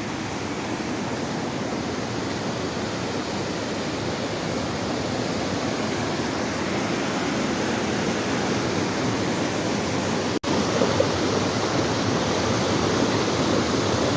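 Waterfall: a steady rush of falling water that grows slightly louder. It cuts out for an instant about ten seconds in.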